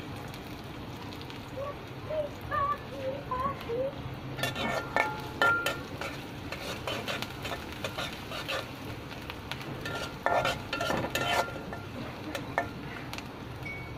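Sliced onions sizzling in oil in an iron karahi, stirred with a flat metal spatula. The spatula scrapes and clinks against the pan in two spells of quick strokes, about four seconds in and again about ten seconds in.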